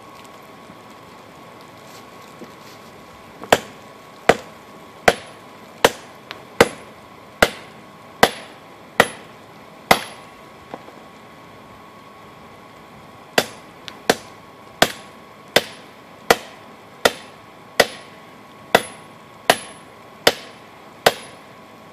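Hand hammer forging hot steel from an old adjustable wrench into a knife blade: sharp ringing blows about every three-quarters of a second. The blows come in two runs, the first of about nine, then a pause of a few seconds, then about eleven more.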